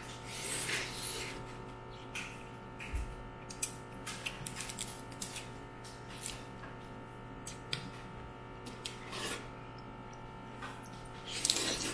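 Eating steamed mud crab: scattered, irregular cracks, clicks and scraping of crab shell being broken and picked apart by hand. A steady low hum runs underneath.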